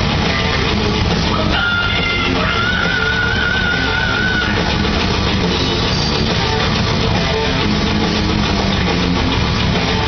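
Heavy metal band playing live through a club PA during its sound check: distorted electric guitar, bass and drums, with a held high note wavering in pitch for a couple of seconds about three seconds in.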